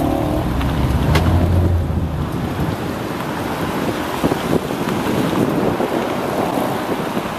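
Wind buffeting the microphone of a moving car on a wet road. A low engine hum is heard in about the first two seconds, then fades under the wind noise.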